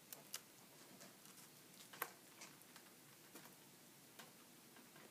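Dry hay crackling as a guinea pig roots and nibbles in it: faint, irregular ticks and crackles, the loudest about two seconds in.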